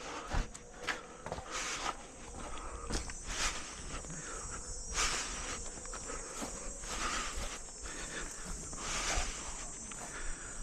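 Footsteps of a player walking, irregular steps over a steady high-pitched drone of insects.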